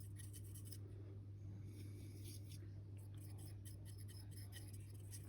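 Faint, irregular scratching of a small paintbrush swirled around the tyres of a 15mm scale model vehicle, over a steady low hum.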